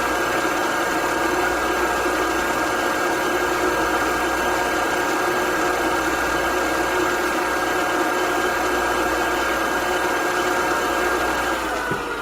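Electric motor running steadily with a constant whine. It is switched off near the end, and its pitch falls as it spins down.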